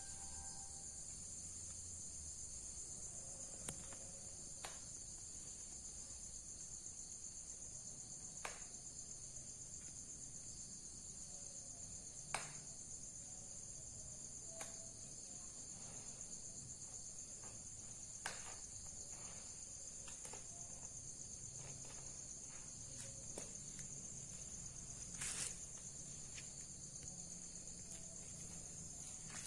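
Faint, steady high-pitched chirring of crickets, with a few brief faint clicks and taps scattered through, the loudest about twelve seconds in.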